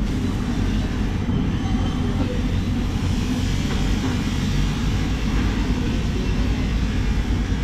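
Water from a hose spraying onto a whole tuna and the wet floor, an even hiss over a steady low rumble.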